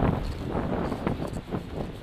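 Storm wind buffeting the microphone, a rough low rush that is strongest at the start and eases off through the gust.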